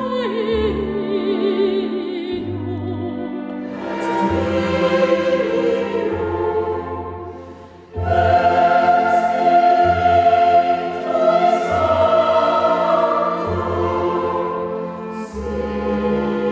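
A soprano soloist singing with wide vibrato over strings, her line ending about two seconds in; then a mixed choir and small string ensemble with cello and double bass come in, fade briefly just before eight seconds, and start again loud and full.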